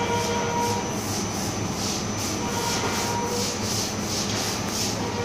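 Dumpling and wonton wrapper machine running: a steady motor hum with a regular swishing pulse about one and a half times a second as the dough sheet is fed through.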